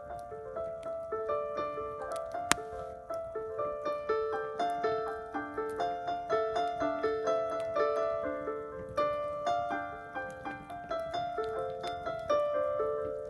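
Slow improvised melody of single struck notes that ring and fade, played on a piano-like keyboard instrument, with a sharp click about two and a half seconds in.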